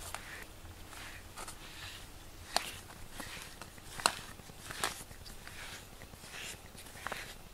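Rubber grooming brush stroking through a cat's fur: a soft rustle about once a second, with a few sharp clicks in between.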